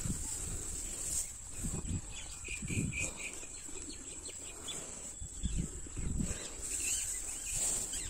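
Cows munching and nosing through dry straw fodder, with irregular low rustles and thumps. A bird chirps a quick run of about five short notes between two and three seconds in, over a steady high-pitched whine.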